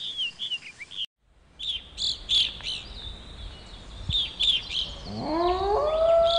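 Birds chirping in short high notes, cut off for a moment about a second in and then resuming. Near the end a wolf howl rises in pitch and is held.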